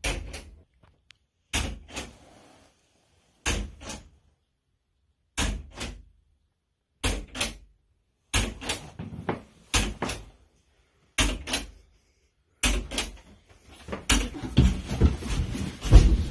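Knocking on a door in pairs of sharp raps, each pair followed by silence, repeating about every two seconds and then coming closer together; near the end it gives way to a jumble of scuffling and thumping.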